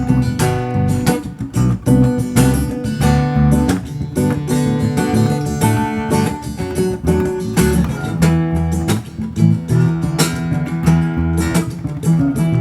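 Background music with a steady rhythm.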